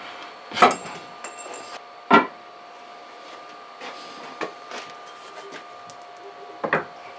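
Wooden boards being set down and shifted by hand, with a few sharp wooden knocks and small clunks: the loudest about half a second in, another about two seconds in, and one near the end. A steady electrical hum runs underneath.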